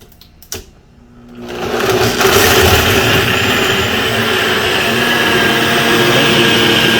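Blender starting up about a second and a half in: the motor quickly rises to full speed, then runs steadily, blending pineapple chunks into a slushie.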